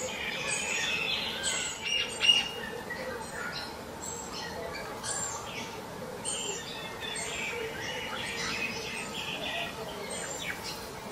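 Small birds chirping and calling, many short high notes one after another, with one louder sharp call about two seconds in.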